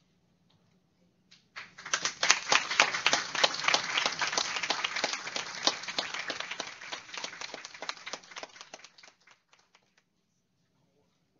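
Audience applauding. It starts abruptly about a second and a half in and thins out to a few last claps before stopping.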